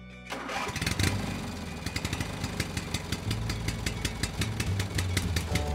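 Engine-like machine running sound, a low rumble with rapid, evenly spaced clicks, starting just after the music stops.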